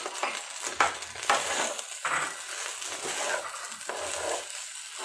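Washed, drained rice being stirred as it fries in ghee in a pot: a spoon scraping through the grains in uneven strokes over a light sizzle.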